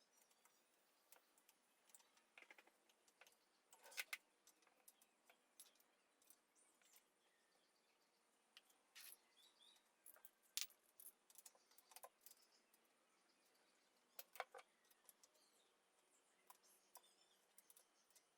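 Near silence with scattered faint clicks and light taps, a few sharper ones about four, ten and a half and fourteen and a half seconds in.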